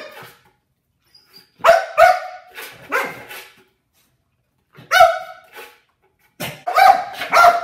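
Australian shepherd barking in three bursts: a run of about four barks, a single bark, then three more near the end.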